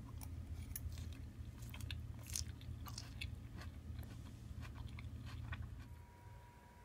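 A mouthful of green salad chewed up close, irregular crisp crunches. About six seconds in the chewing stops and a faint steady high tone begins.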